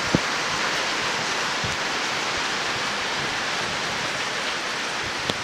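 Loud, steady rain drumming on a metal garage roof. Two sharp clicks stand out, one just after the start and one near the end.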